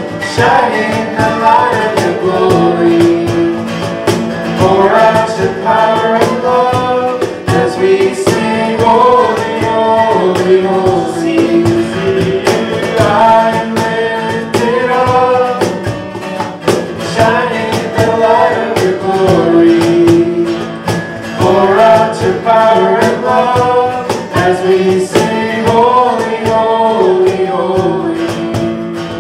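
Acoustic worship band playing a song: strummed acoustic guitar and a steady cajón beat under voices singing the melody.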